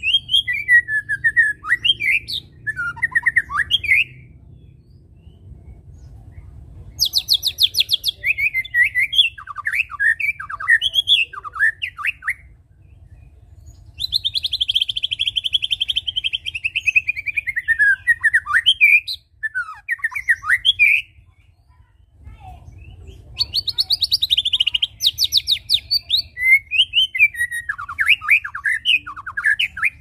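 White-rumped shama singing in four bouts of a few seconds each, with short pauses between. The bouts mix varied whistled phrases with rapid chattering trills, and a long trill about halfway through slides downward in pitch.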